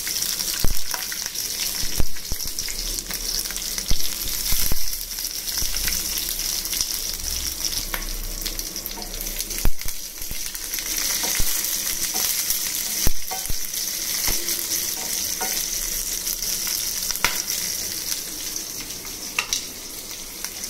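Green chillies, crushed garlic, cumin and mustard seeds sizzling in hot oil in a stainless steel pan, a steady frying hiss with occasional sharp clicks: the tempering stage of the dish.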